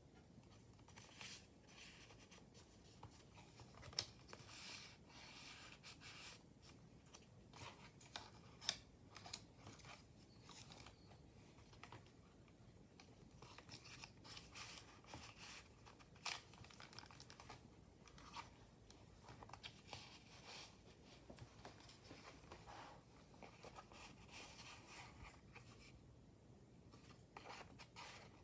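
Paper pages of a handmade junk journal being turned, rustling and crinkling, with scattered soft taps and a few sharper snaps as pages and tucked-in ephemera flip over.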